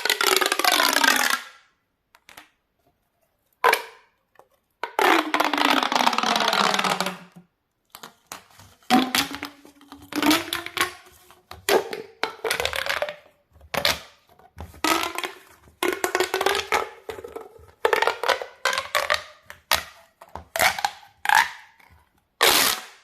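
Plastic pop tubes (corrugated fidget tubes) being stretched and squashed, each pull giving a ribbed, buzzy rasp whose pitch glides. There are two longer strokes near the start, then a quick run of short ones.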